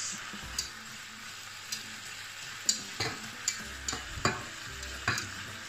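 Beef steak frying in a pan, a steady sizzle, with a cooking utensil clicking against the pans several times.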